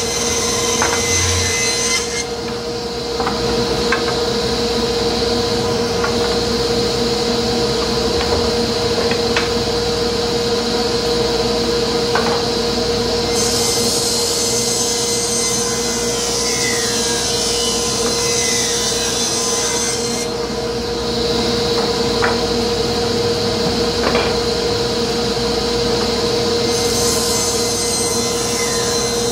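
Table saw running with a steady whine, ripping wooden boards lengthwise along the fence. The cutting sound changes twice, about two seconds in and again about twenty seconds in, as boards feed through the blade.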